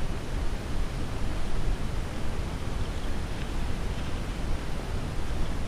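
Steady wind rumbling on the microphone, a constant low noise.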